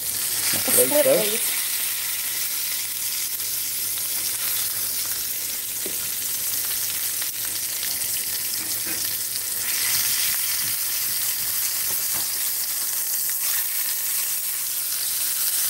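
Ground-beef hamburger steak patties frying in a cast-iron skillet, a steady sizzle, with a few faint ticks of a fork turning them.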